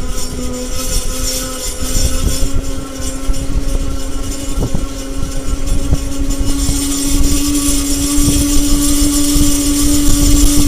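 Lectric e-bike motor making a steady high-pitched screech, the abnormal noise from the motor, its pitch creeping slightly higher as it runs. Underneath is a rushing background noise that grows louder about halfway through.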